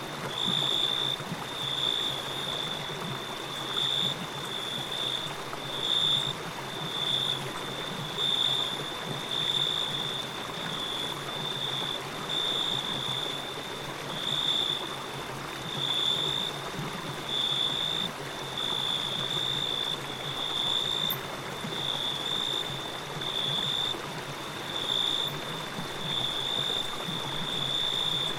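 Forest ambience: running water makes a steady rush that swells gently every couple of seconds. Over it, a high insect chirring pulses about once a second.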